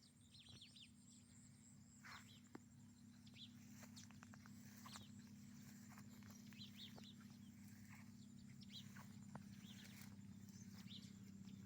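Faint small-bird chirps, short and scattered, over a steady low hum.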